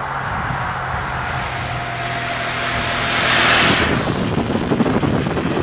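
Ducati Monster V-twin sport bike running on the road, its engine note steady while the rush of noise builds to a peak about three and a half seconds in, then gives way to steady wind and road noise.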